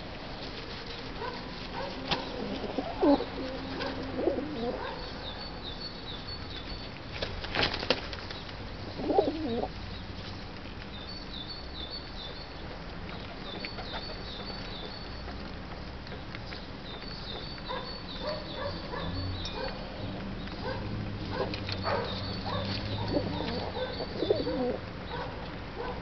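Feral pigeons cooing in low, rolling notes on and off, with sharp wing flaps and flutters as birds jostle and land at a grain pile.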